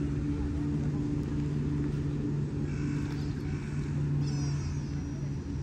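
A steady low mechanical hum, with a few short high-pitched calls about three and four seconds in.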